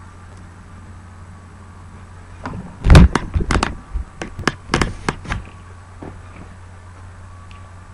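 Small dog chewing on a chew bone: a run of a dozen or so sharp crunching clicks from her teeth on the bone, loudest about a third of the way in and stopping after a few seconds, over a steady low hum.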